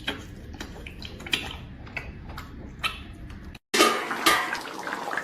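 Scattered light clicks of utensils against dishes. After an abrupt cut about three and a half seconds in, a louder stretch of running, splashing water.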